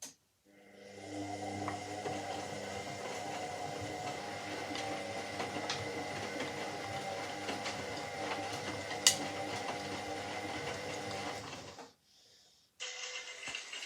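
Washing machine running: a steady motor hum with a high whine and light ticking. It builds up over the first second, gives one sharp click about nine seconds in, and cuts off suddenly near the end.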